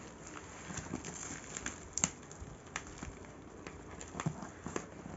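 Bubble-wrapped parcel being handled and unwrapped: plastic wrap crinkling, with scattered sharp crackles.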